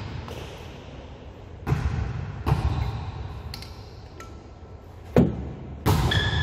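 Volleyball being struck during a rally in an echoing gym: four sharp hits, two about two seconds in, half a second apart, then two more just after five seconds, the first of those the loudest.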